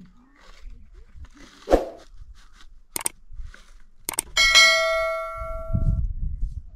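Subscribe-button sound effect laid over the picture: a few sharp clicks, then a bright notification-bell ding about four seconds in that rings and fades over about a second and a half. A dull thump comes earlier, and a low rumble near the end.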